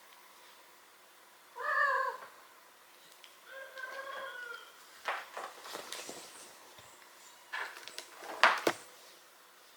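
A domestic cat meowing twice, a short bending call and then a slightly longer, steadier one, followed by several sharp knocks and rustles, the loudest near the end.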